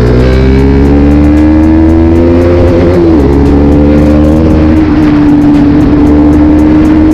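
KTM Duke 250's single-cylinder engine pulling under throttle, its pitch rising for about three seconds, then dropping sharply at an upshift and holding steady while cruising.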